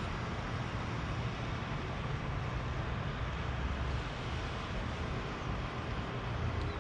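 Steady road-traffic noise, a continuous hiss with a low rumble underneath.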